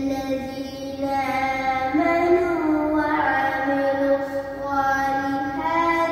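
A child's voice chanting Quran recitation in long, held melodic phrases, the pitch stepping and sliding between notes every second or two with only short breaks.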